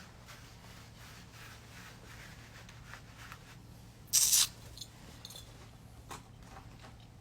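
Faint room noise over a steady low hum, with one short hiss about four seconds in.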